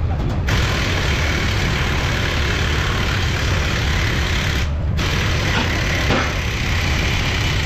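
Steady workshop background noise: a continuous low, engine-like rumble with hiss over it.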